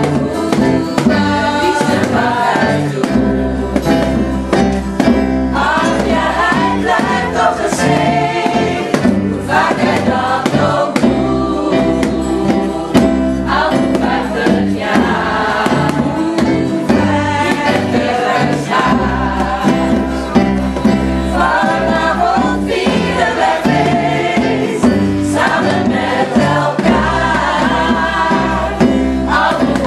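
A group of voices singing a song together over an instrumental backing with steady, long-held bass notes.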